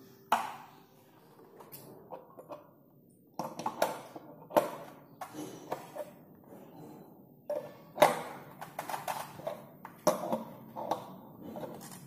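Steel adjustable wrench clinking and knocking against the metal safety-valve fitting of an electric water heater as the valve is fitted. The knocks are sharp and irregular, a dozen or so, each with a short ring, and the loudest comes about 8 seconds in.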